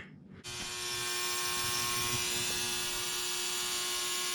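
Ultrasonic cleaner starting about half a second in and then running with a steady buzzing hum and hiss while it cleans a lawnmower carburetor.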